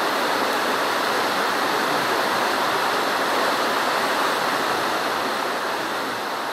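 Steady rushing of churned water in a cruise ship's propeller wake, heard from high on the stern. It eases off slightly near the end.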